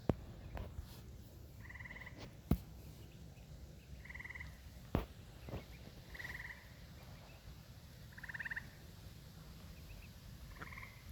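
A frog calling five times in short pulsed trills, about two seconds apart, with a few sharp taps in between.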